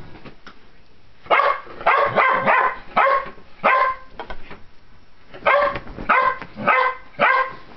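A dog barking in two runs of about four short barks each, the first starting about a second in and the second past the middle.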